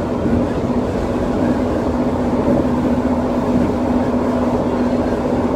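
Running noise of an elevated linear-induction-motor metro train (SkyTrain type), heard from inside the car: a steady rumble with a constant hum, at cruising speed.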